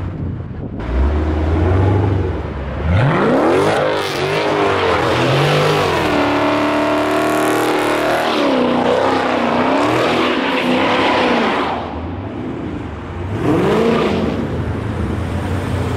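Dodge Challenger Scat Pack's 392 HEMI V8 with its mid-mufflers deleted, revving hard through a burnout with the rear tyres spinning and hissing. The revs climb and dip repeatedly, hold high for a couple of seconds in the middle, and swell once more near the end.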